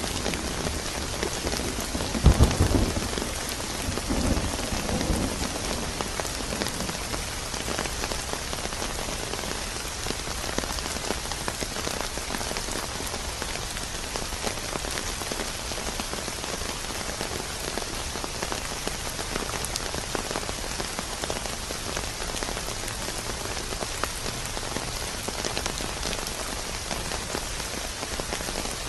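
Steady rain falling. A low rumble of thunder swells about two seconds in, with a weaker after-rumble a couple of seconds later, and dies away.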